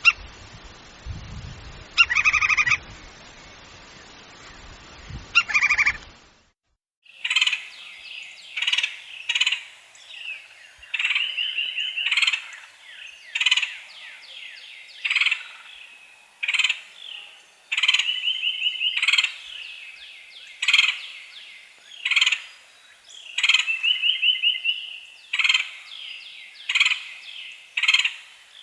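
Woodpecker calls in two recordings. The first has a steady background hiss and two short calls. After a brief silence comes a clean series of sharp calls, repeating roughly once a second, with quick rattling trills in between.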